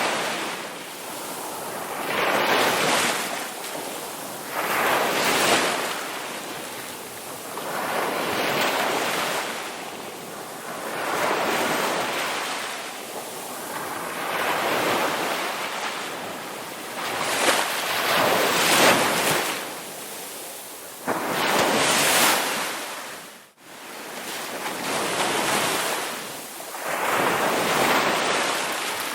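Sea waves breaking and washing up a beach, surging and easing every few seconds. The sound drops out briefly about two-thirds of the way through.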